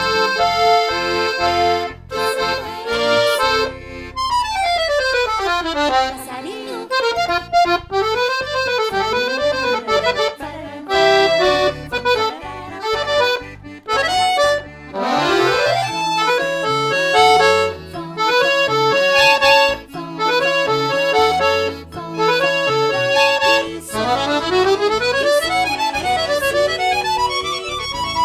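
Accordion (sanfona) playing a lively tune, with several quick runs of notes sweeping up and down in pitch over a rhythmic bass accompaniment.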